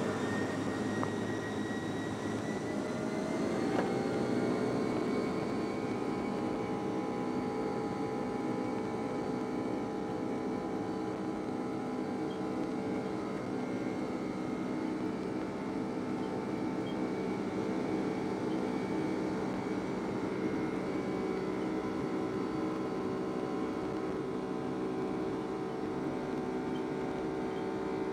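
Boeing 757-200's twin jet engines heard from inside the cabin while the airliner taxis: a steady hum with several whining tones that rise in pitch over the first few seconds as the thrust comes up, then hold level. A faint knock about four seconds in.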